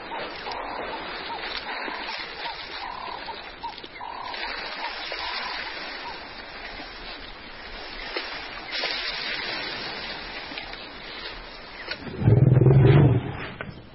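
African elephant giving one loud, low roar about a second long near the end, over a steady background chorus of small animal calls.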